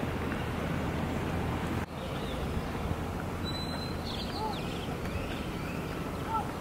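Steady outdoor background noise with low rumble on the microphone, broken by a brief dip about two seconds in, and a few faint short bird chirps in the second half.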